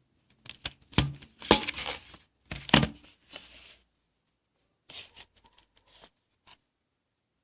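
Packaging being handled and opened: a run of sharp clicks and crinkly, tearing rustles, loudest in the first few seconds, then a few fainter clicks.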